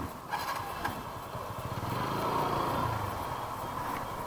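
TVS Apache RTR 200 4V's single-cylinder motorcycle engine running at low speed in slow traffic. The engine note swells about two seconds in and then drops in pitch. Two short knocks come in the first second.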